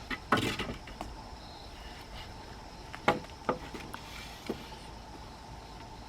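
A brief rustling scrape near the start, then a few sharp separate knocks around the middle.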